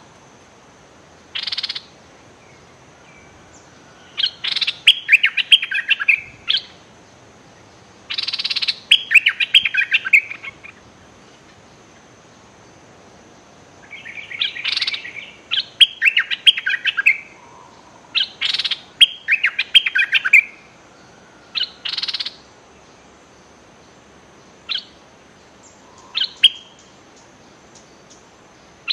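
Bulbuls calling, a caged decoy among them: short harsh scolding notes and bubbling warbled phrases, each phrase about two seconds long, coming in bunches every few seconds with quiet gaps between.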